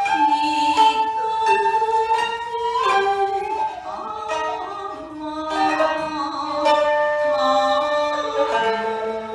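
Jiuta ensemble music: plucked sangen (shamisen) and koto notes under a sustained shakuhachi line, with a woman singing in long held tones.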